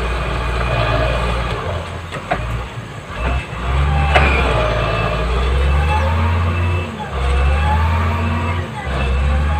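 Motor grader's diesel engine working under load as it climbs over a soil mound, a deep rumble that dips and comes back several times. A couple of sharp clanks about two and four seconds in.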